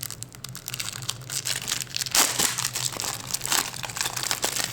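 Packaging being handled, crinkling and rustling in irregular bursts, loudest about two seconds in.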